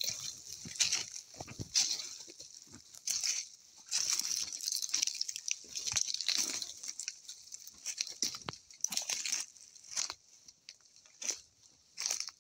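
Irregular crunching and rustling of footsteps through dry leaves and brush.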